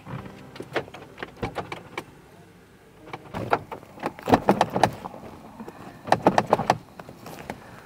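Car door handle pulled again and again against a locked door, clicking and rattling in quick clusters, the door held shut by the lock.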